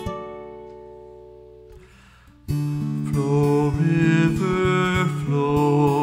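Acoustic guitar: a plucked chord rings and slowly fades, then about two and a half seconds in a man's singing voice comes in over fingerpicked guitar accompaniment.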